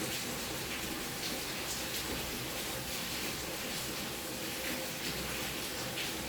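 Steady hiss of room and recording noise, with a few faint light ticks.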